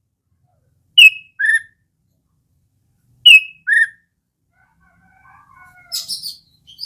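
Sooty-headed bulbul (kutilang) calling: two sharp two-note phrases about two seconds apart, each a high note dropping to a lower one, then a soft low warble and a quick run of chirps near the end.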